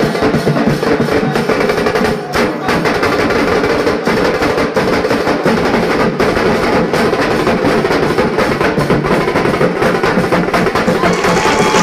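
Music driven by drums and percussion, with rapid steady strikes and no break.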